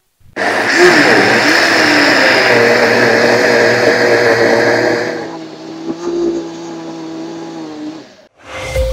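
Electric countertop blender running at full speed, grinding soaked melon seeds with water into a smooth liquid. About five seconds in the sound drops to a quieter, duller running, and it stops shortly before the end.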